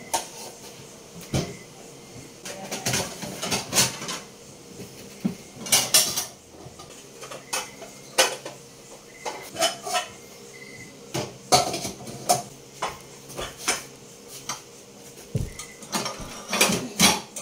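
Plates, bowls and cutlery clinking and clattering irregularly as dishes are washed by hand at a kitchen sink.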